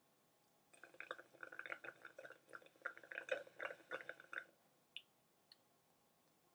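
Slurping a drink through a straw: an irregular, crackly run of sucking lasting about four seconds, starting just under a second in, then two faint clicks.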